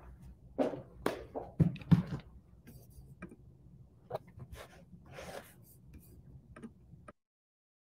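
Footsteps, knocks and handling bumps as a person walks up to a laptop and reaches for it, then the audio cuts off abruptly about seven seconds in as the microphone is switched off.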